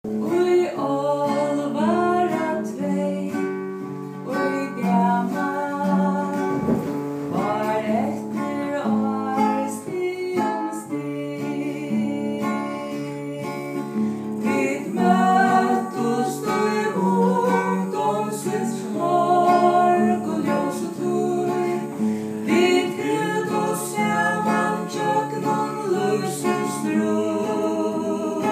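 Singing accompanied by an acoustic guitar, the sung notes held with a wavering vibrato over steady guitar chords.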